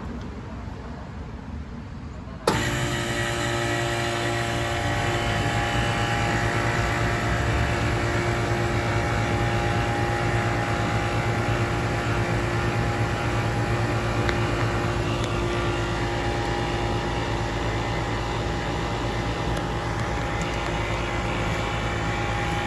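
A 1991 Bryant Reliant 5-ton, 3-phase heat pump, fitted with a replacement Copeland CR compressor, starting up in cooling mode. It kicks on abruptly about two and a half seconds in, then the compressor and condenser fan run with a steady hum.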